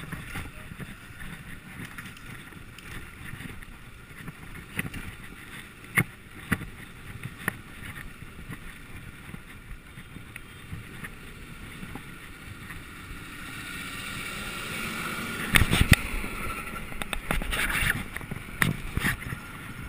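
Wind rush and road rumble on a handlebar-mounted camera's microphone while cycling in traffic, with scattered sharp knocks from the bike jolting over the road. The noise grows louder in the last few seconds.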